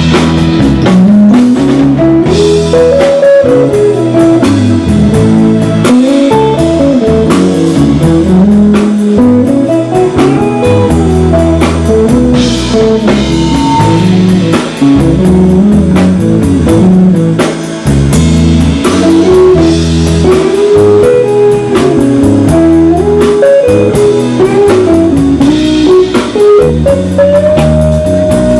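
Blues band playing an instrumental passage: a lead guitar line with bent, sliding notes over bass and drum kit.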